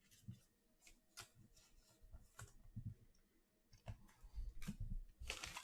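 Trading cards being handled, with soft clicks and light taps as cards are slid and set down. Near the end a card-pack wrapper starts crinkling loudly as the next pack is opened.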